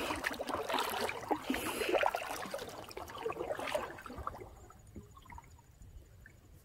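Kayak paddling: water splashing and trickling off the paddle blades and rippling along the hull. It fades to faint lapping about four seconds in.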